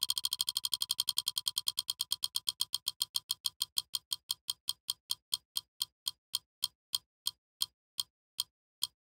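Clock-like ticking sound effect: a run of identical sharp ticks that slows steadily, from a fast rattle at about a dozen ticks a second down to about two a second by the end, like time winding down.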